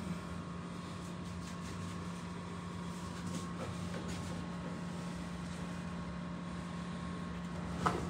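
Steady low machine hum with a fainter higher tone above it, under a few faint clicks of handling; a short knock just before the end.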